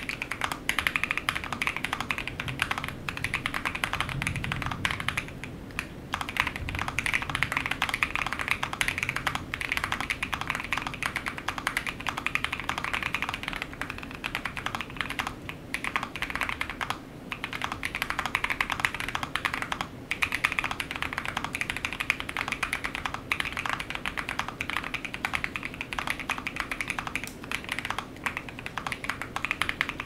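Fast, continuous typing on the Louise, an Alice-layout mechanical keyboard with a forged carbon fibre plate, Holy Boba tactile switches and PBTfans Twist PBT keycaps: a dense run of keystroke clacks with short pauses every few seconds.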